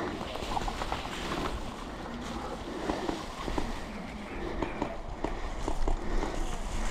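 Footsteps rustling through woodland undergrowth and leaf litter, with scattered small snaps and crackles.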